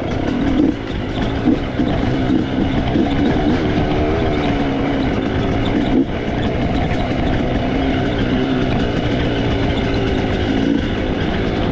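Dirt bike engine running steadily under way on a test ride after carburetor tuning, its pitch holding fairly even with small rises and dips. A few sharp knocks stand out over it.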